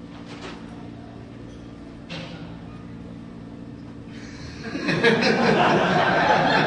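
Low steady hum of a quiet banquet hall, then about five seconds in the audience's crowd noise starts up loudly, with many voices at once.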